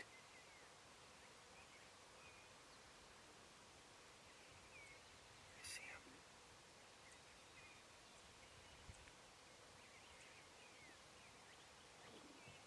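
Near-silent woods with faint, scattered songbird chirps and one brief, sharper call about six seconds in.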